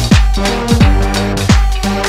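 Background electronic music with a deep, falling-pitch kick drum beating about every three-quarters of a second under held notes.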